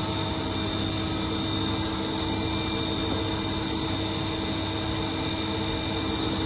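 Steady mechanical hum and hiss with several constant high and low tones, unchanging throughout.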